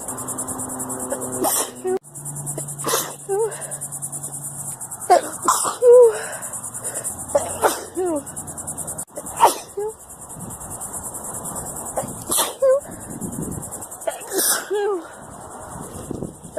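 A string of sneezes from a person, about eight sharp bursts one to three seconds apart, some ending in a short vocal squeak. Crickets chirr steadily underneath.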